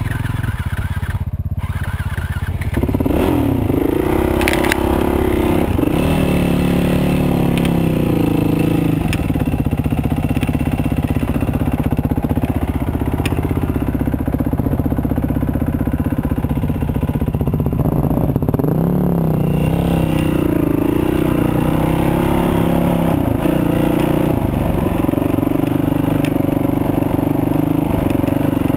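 Dirt bike engine running at low speed on a rough trail, its note rising and falling with the throttle; it picks up louder a few seconds in.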